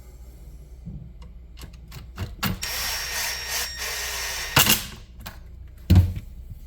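A handheld power tool runs steadily for about two seconds, with scattered clicks before it. Two loud knocks follow.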